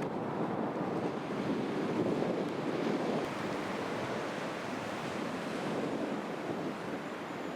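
Ocean surf washing onto a sandy beach, a steady rush of waves, with wind blowing on the microphone.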